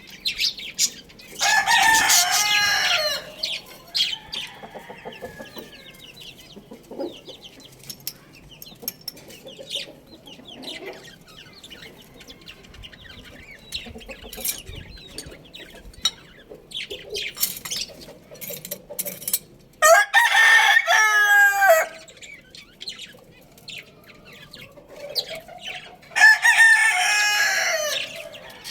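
A rooster crowing three times, each crow about two seconds long and falling in pitch at the end. Between the crows there is quieter clucking and scattered clicks.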